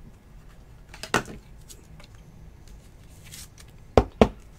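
Trading cards in clear plastic holders being handled on a table: a tap about a second in, then two sharp clicks a quarter-second apart near the end as the holders knock against the stack.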